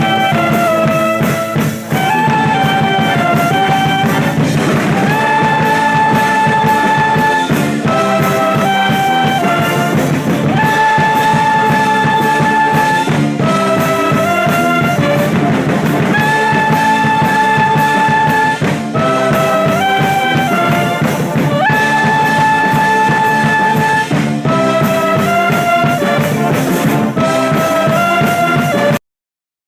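Marching band brass section playing an upbeat tune: trumpets, trombones and saxophones in a repeating phrase of short notes and long held notes. The music cuts off abruptly near the end.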